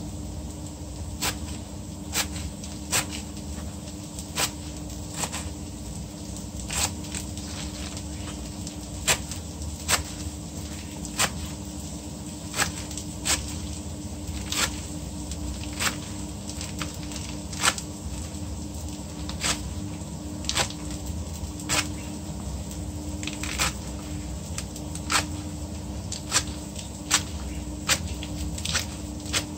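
Kitchen knife slicing Swiss chard leaves into strips on a cutting board, a crisp tap as each cut meets the board, roughly one a second, over a steady low hum.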